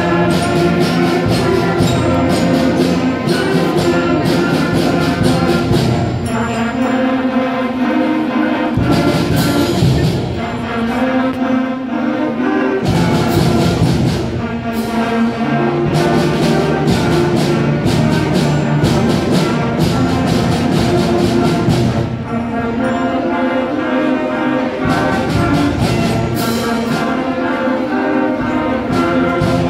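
Student concert band playing a piece: held brass and woodwind chords, including flutes, over regular percussion hits.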